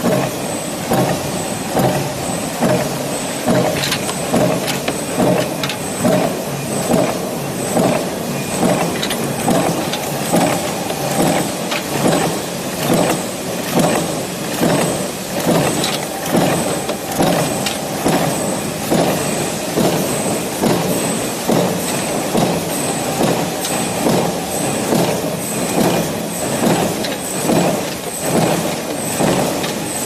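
Mechanical power press stamping cabinet-hinge parts, cycling in an even rhythm of about one stroke a second over the steady running noise of the factory machinery.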